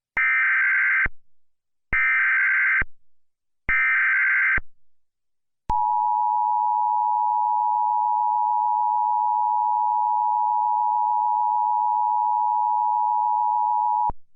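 Emergency Alert System header: three short bursts of warbling digital SAME data tones, followed by the steady two-tone EAS attention signal, which holds for about eight seconds and cuts off abruptly. This is the start of an alert message.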